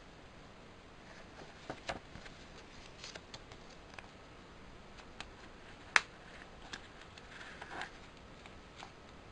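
Handling a plastic CD case and its paper inserts: scattered small clicks and taps, one sharp click about six seconds in, and a short rustle of paper near the end.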